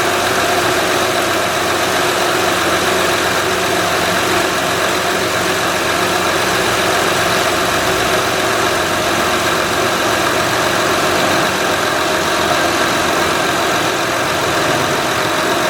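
A 2006 Honda Odyssey's 3.5-litre V6 engine idling steadily, with a constant hum of steady tones from the engine bay and belt-driven accessories, freshly fitted power steering high-pressure hose running under pressure.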